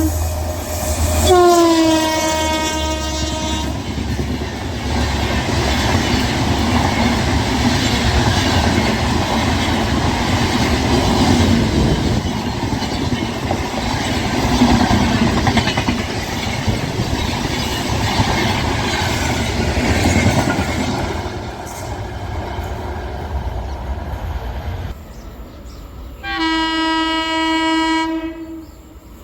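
Fast trains passing: a horn blast about a second in, dipping in pitch as it starts, then a long, loud rush and clatter of wheels over the rails. The rush drops away near the end, and a second steady horn blast sounds from the next train.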